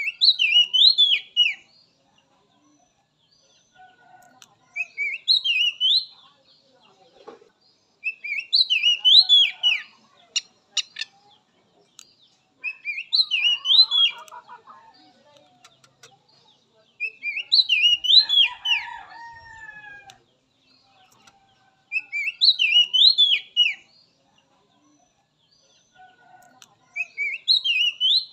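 Oriental magpie-robin (kacer) singing the same short whistled phrase, rising and falling quickly, seven times, about every four to five seconds. Fainter, lower bird calls come between the phrases.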